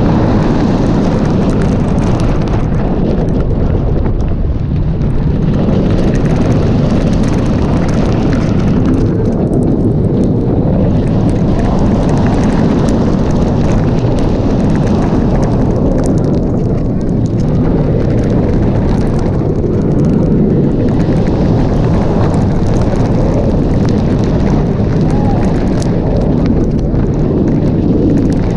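Loud, steady rush of wind buffeting the microphone as a B&M steel looping roller coaster train races along its track, with the rumble of the train underneath.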